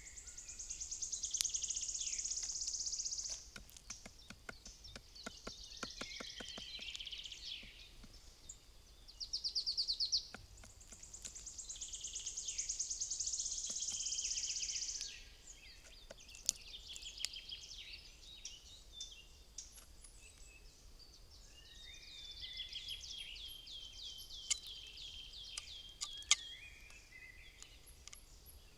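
Wild woodland songbirds singing and calling: long high trilling songs lasting a few seconds each, one near the start and one in the middle, with shorter chirps between. A scatter of sharp taps and clicks comes through, thickest a few seconds in.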